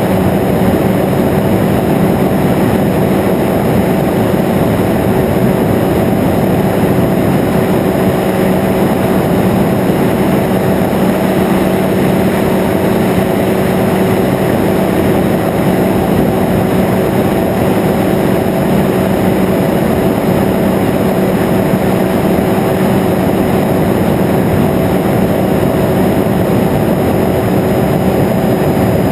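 Weight-shift microlight trike in flight: the steady drone of its engine and rear pusher propeller, mixed with the rush of wind through the open cockpit.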